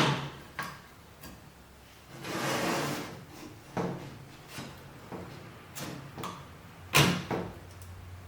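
A series of sharp knocks and clicks from objects being handled, loudest right at the start and about seven seconds in, with a short sliding scrape about two seconds in.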